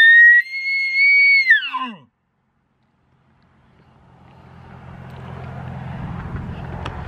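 Elk bugle call made with a diaphragm reed blown into a Nalgene bottle: a loud, high whistle that holds and then falls away, ending about two seconds in. After a short gap, a car's engine and tyre noise swell steadily as it approaches.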